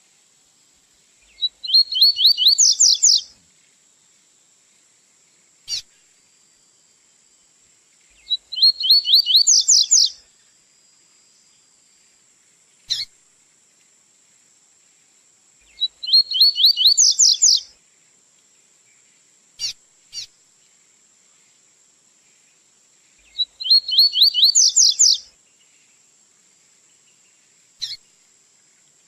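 Double-collared seedeater (coleiro) singing its 'tui-tui' song: four short phrases of fast repeated rising notes, about seven seconds apart, with a single short chip between phrases. A faint steady high-pitched tone runs underneath.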